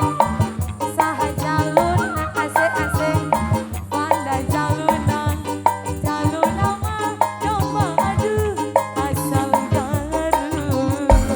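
Live folk band music: an upbeat, steady drum rhythm with a rattle and a wavering lead melody, an instrumental passage with no clear singing.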